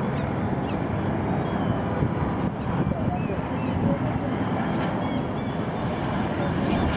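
Boeing 737-800 airliner's CFM56-7B jet engines making a loud, steady rushing noise as it flies a low banking pass. Many short high chirps sound over it.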